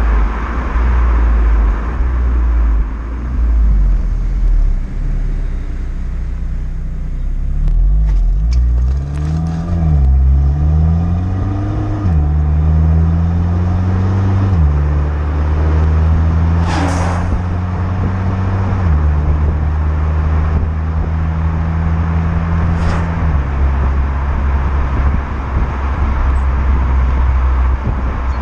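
Renault Mégane GT's 1.6 TCe 205 turbocharged four-cylinder engine through its stock exhaust in Neutral drive mode. After a low rumble, the revs rise in short pulls about eight to twelve seconds in, then the engine note drops in several steps and settles between them.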